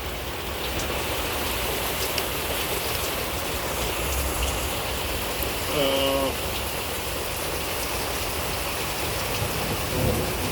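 Steady rain falling, a continuous even hiss. A short vocal sound about six seconds in.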